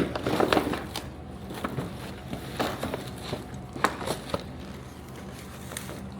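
Scattered knocks and clatter of drinks and snack packs being handled and loaded into a vending machine, a few sharper knocks about half a second in, near the middle and just past it.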